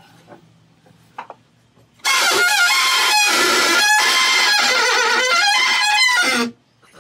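Catamaran rudder shaft squeaking in its lower bearings as the rudder turns: a loud, wavering squeal with several pitches at once that starts suddenly about two seconds in and stops abruptly about four and a half seconds later. The squeak is the sign of rudder bushings binding on the shaft, which the owner traces to new Delrin bushings that swelled tight in the water.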